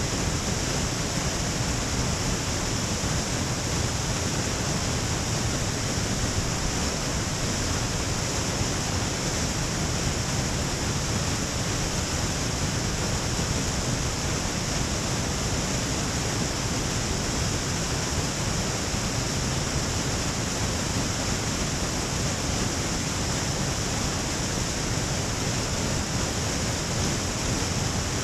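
Moonlight Falls, a waterfall sliding down a granite face and splashing into the pool at its foot: a steady, unbroken rush of falling water.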